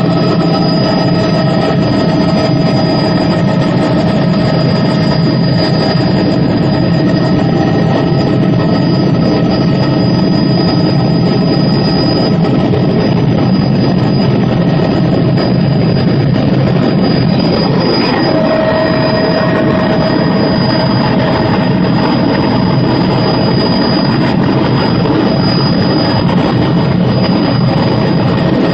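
Tour helicopter in flight: a loud, steady wash of engine and rotor noise with a constant high whine over it. One of the tones shifts slightly in pitch about two-thirds of the way through.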